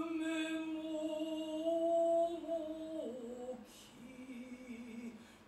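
A biwa-gatari singer holding one long sung note steady for about three seconds, then stepping down to a lower, wavering note that fades away.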